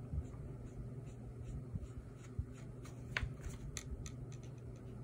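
Pentel brush pen drawing long ink lines on paper: a scatter of faint scratching strokes and light ticks, one a little louder about three seconds in.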